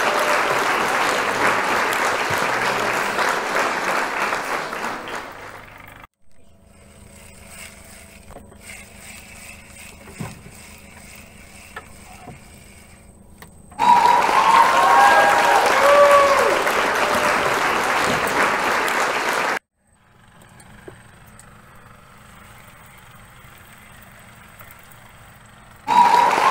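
Applause with cheering voices, likely a dubbed sound effect. It comes in blocks that cut in and out abruptly: loud at the start, fading out about six seconds in, back for several seconds past the middle, and cutting in again near the end, with a much quieter faint hum between.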